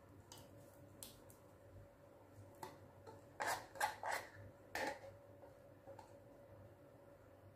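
Silicone spatula scraping condensed milk out of a tin can: a few faint ticks, then a cluster of four short, louder scrapes about three and a half to five seconds in.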